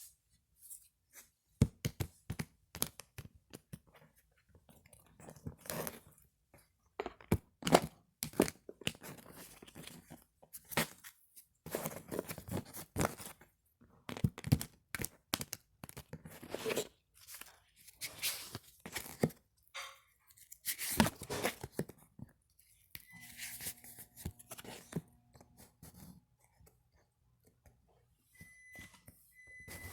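A deck of tarot cards being shuffled and handled: a long run of snapping, riffling and rustling noises. A few short high beeps come near the end.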